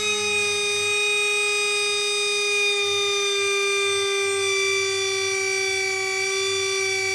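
Pencil grinder spinning free at a held-back speed, a steady high-pitched whine that drifts slightly lower in pitch late on.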